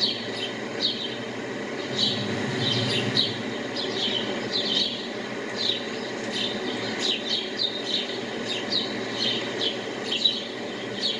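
Birds chirping: many short high chirps, several a second, over a steady low background noise.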